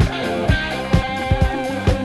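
Disco-rock music: a steady kick-drum beat about twice a second under held chords.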